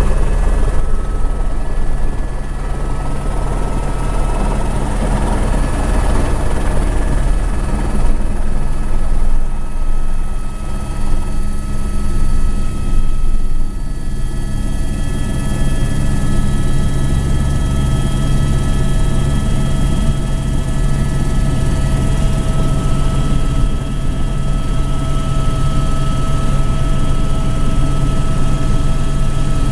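Eurocopter AS350 B2 Ecureuil helicopter heard from inside the cockpit, running at flight power: a steady turbine whine over the low throb of the main rotor as it moves along the runway and climbs away.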